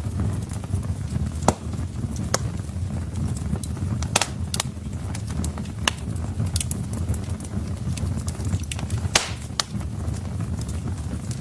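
Wood fire crackling in a fireplace: irregular sharp pops and snaps of burning logs over a steady low rumble of the flames, with a few louder pops about a second and a half in, around four seconds in and near nine seconds.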